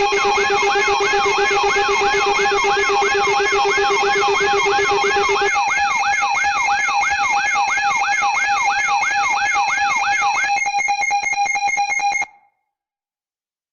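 Layered electronic alarm tones: several steady tones held together under a siren-like sweep that rises again and again, about two and a half times a second. The lowest tone drops out about five and a half seconds in, and the sweep stops about ten and a half seconds in. A fast pulsing follows, and then everything cuts off abruptly about twelve seconds in.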